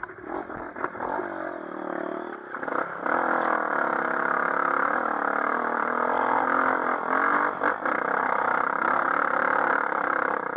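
Single-cylinder dirt bike engine revving, its pitch rising and falling, getting much louder about three seconds in and then running hard.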